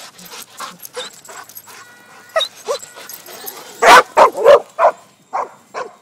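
Dogs barking, with scattered short calls and then a burst of loud barks about four seconds in.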